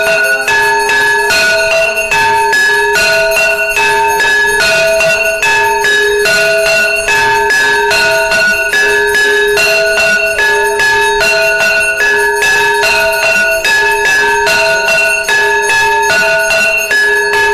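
Temple bells ringing continuously for the arati, struck in rapid, unbroken strokes. The ringing falls into a steady repeating pattern of two alternating pitches over a constant hum.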